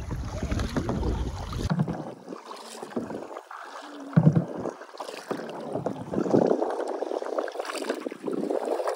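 Kayak paddles dipping and splashing in calm water, in uneven strokes, with one louder splash about four seconds in. Wind buffets the microphone during the first second or two.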